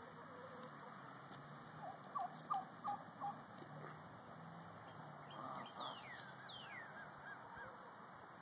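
Backyard poultry calling: four short, loud calls in quick succession about two seconds in, then a run of higher, falling chirps a little later.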